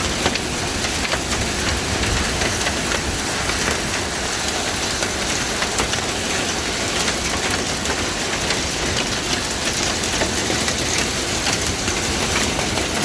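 Monsoon rain falling steadily and hard, a dense hiss with many small sharp taps of drops hitting surfaces.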